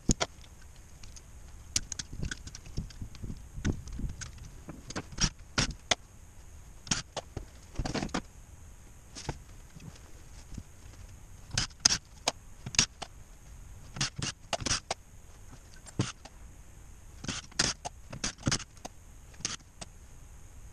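Irregular metallic clinks, taps and knocks of tools and small parts being handled on a metal workbench while an automatic transmission is taken apart, some louder clacks in clusters.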